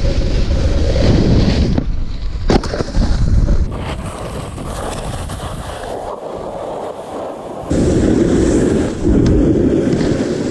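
A snowboard scraping and carving over packed snow, with wind buffeting the microphone. It is loud for the first few seconds, quieter through the middle and loud again for the last few seconds, with one sharp click about two and a half seconds in.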